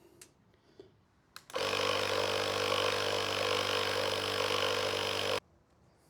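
A small electric motor runs steadily at one pitch for about four seconds, switched on and off abruptly, after a few light handling clicks.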